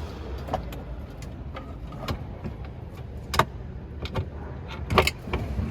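Scattered sharp clicks and knocks, about five, the loudest two about halfway and near the end, from cable connectors and parts being handled and fitted back onto a scooter's motor controller, over a steady low hum.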